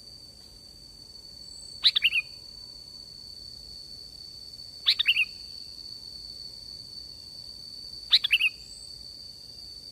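Sooty-headed bulbul (kutilang) calling: a short phrase of a few quick notes, given three times about three seconds apart, over a thin steady high tone.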